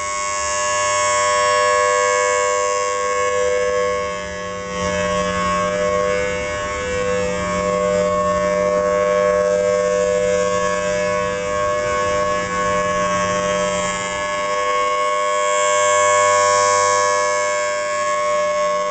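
Federal Signal Thunderbolt 1003 rotating outdoor warning siren sounding a steady, unchanging tone, the alert signal of its monthly test. The sound swells and fades as the rotating horn sweeps past, loudest about two seconds in and again near the end.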